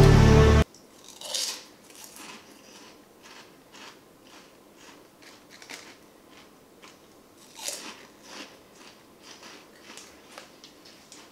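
Loud music cuts off abruptly under a second in. It gives way to quiet kitchen handling sounds: scattered light clicks, taps and rustles as small things are handled at a counter.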